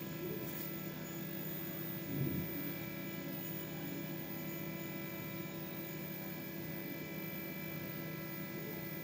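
Steady electrical hum with several faint, even high tones layered over it, and a soft brief low sound about two seconds in.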